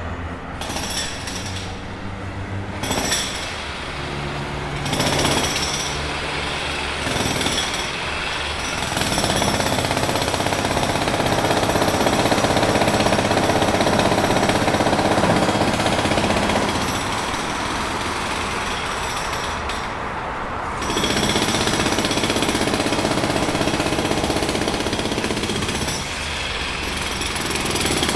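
Jackhammer pounding in rapid repeated strikes, in bursts that stop and restart several times, with a long steady run in the middle.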